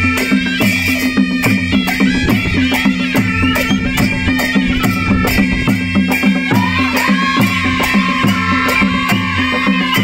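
Nepali naumati panchebaja folk music: a reedy wind melody over a steady drone, barrel drums, and jhyamta hand cymbals clashing in a steady rhythm about three times a second. About six and a half seconds in, the wind melody holds one long note that sinks slightly at the end.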